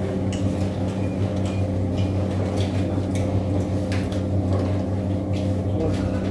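A steady machine hum, with scattered light clicks and rustles.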